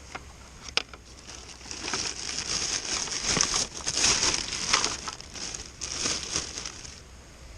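Crinkling and rustling of material being handled, beginning about two seconds in after a single sharp click, and easing off near the end.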